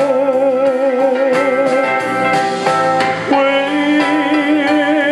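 Slow country ballad backing track with guitar and steel guitar, under a man's voice holding long notes with vibrato into a microphone; the held note drops lower about three seconds in.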